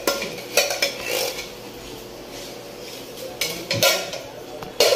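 Metal clinks and knocks of a tin can against a steel wok as cans are emptied into it: a few sharp clinks about half a second in, a quieter stretch, then several more near the end.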